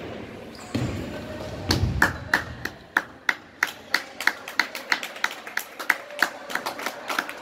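Spectators clapping in a steady rhythm, about three claps a second, starting about two seconds in, with a few dull thuds on the court just before.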